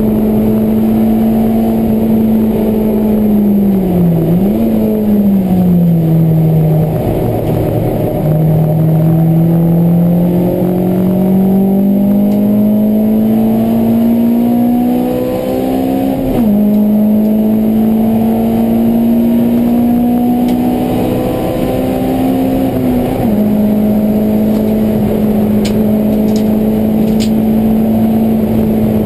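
Honda Civic EK4's four-cylinder engine, heard from inside the cabin while it is driven hard on track. Its pitch falls a few seconds in as the car slows, then climbs steadily for several seconds. It drops sharply twice at upshifts, about halfway through and again about two-thirds of the way through, and holds steady near the end.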